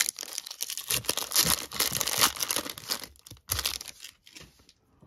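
Foil wrapper of a baseball card pack being torn open and crinkled by hand; the crinkling stops about three and a half seconds in, leaving a few faint ticks.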